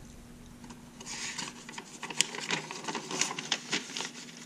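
A sheet of paper rustling and crinkling as it is handled, then pressed flat on a wooden workbench, with a few small ticks.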